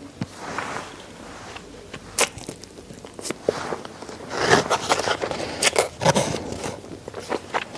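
Close-miked chewing of chicken neck, with crunching bone and wet clicks of the mouth. The crunches are sparse at first and come thick and loud from about four seconds in.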